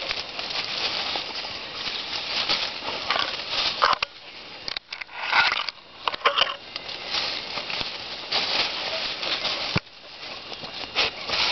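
Leaves and twigs of dense undergrowth rustling and crackling as it is pushed through, with leaves brushing over the microphone. It goes in irregular bursts, loudest about halfway through, with one sharp snap near the end.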